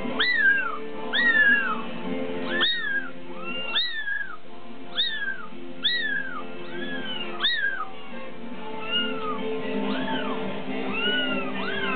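Bengal kittens mewing over and over, short high calls that rise and fall, about one a second, growing fainter after about eight seconds. Background music with steady held notes plays underneath.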